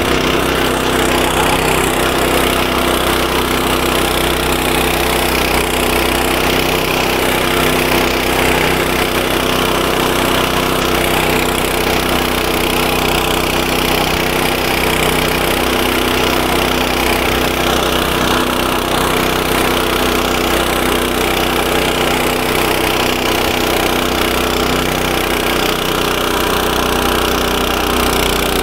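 Walk-behind tractor's single-cylinder engine running steadily under load, driving a rotary mower attachment through tall grass.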